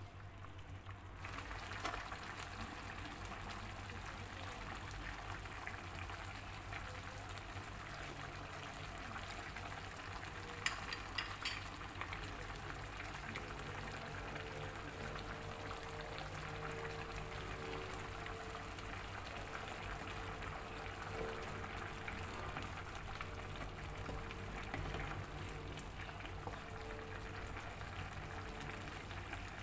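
Coconut-milk broth with smoked catfish simmering in an uncovered pan, bubbling steadily, with a few sharp clicks about eleven seconds in.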